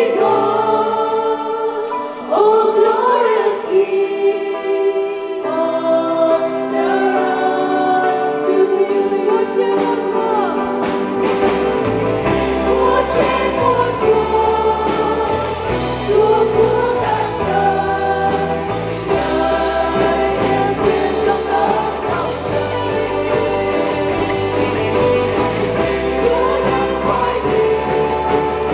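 A church choir of women and men singing a Vietnamese worship song together into microphones, holding long chords. A band joins about eleven seconds in, with a bass line and drum beats under the voices.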